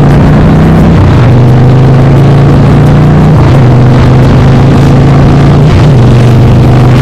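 Straight-through exhaust of a 2007 Harley-Davidson Night Train's Twin Cam 96 V-twin running loud through Vance & Hines Big Radius pipes with the baffles removed. The engine note holds steady, dropping a little in pitch about a second in and again around the middle.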